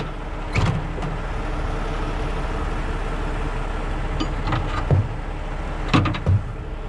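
Heavy steel bow shackles clanking against one another as they are pulled out of a tow truck's side compartment: a handful of separate sharp metal knocks, the loudest pair near the end, over a steady background hum.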